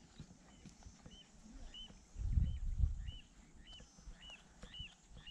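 A bird repeating a short, arched call about twice a second. About two seconds in, a low rumble lasting under a second is the loudest sound, with scattered light clicks around it.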